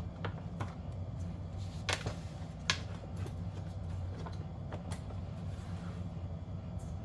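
Scattered light clicks and taps of plastic HVAC housing parts and damper doors being handled and pressed together, over a steady low hum.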